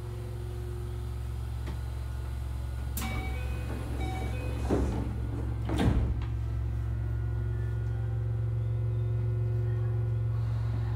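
Keio 8000 series commuter train heard from inside the car: a steady low rumble and motor hum that grows slowly louder as the train gets under way. A few sharp clunks come about three, five and six seconds in, the last the loudest.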